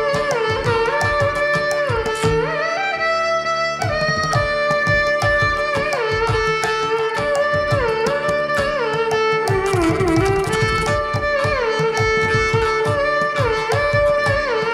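Carnatic violin playing a melody in raga Ganamurthi, its notes sliding and bending in gamaka ornaments, over mridangam drum strokes and the twang of a morsing (jaw harp) in Adi tala. The percussion briefly drops out about three seconds in.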